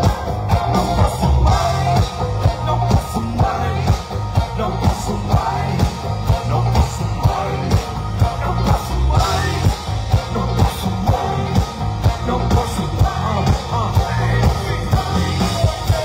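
Live pop-rock band playing through a concert PA, heard from the crowd: vocals over drums, bass and keyboards with a steady pulsing beat.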